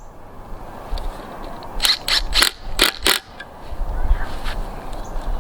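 Several sharp clicks and knocks in quick succession, over a low rumble that comes and goes.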